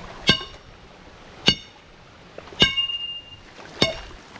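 A hard object is striking a river stone in four sharp, clanging blows, about one every 1.2 seconds, each ringing briefly. This is stone-hammering, a way of fishing in which a rock is struck to stun the fish sheltering beneath it.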